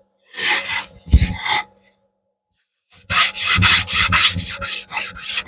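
Cloth rag rubbing wax into an oak clock's wooden surface: a few scrubbing strokes, a pause of about a second, then quick back-and-forth strokes about five a second.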